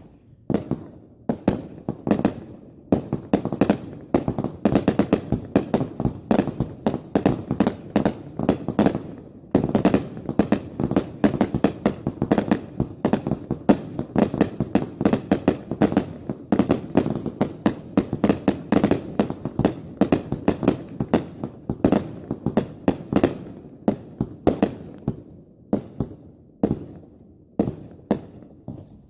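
Consumer fireworks going off in rapid succession: a dense barrage of sharp bangs, several a second, thinning out near the end.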